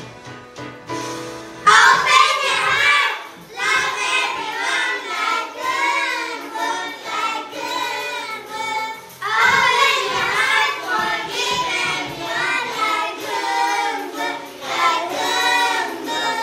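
Young children's voices singing a song in unison over a music backing track. The singing comes in about two seconds in, breaks off briefly around the middle, and picks up again.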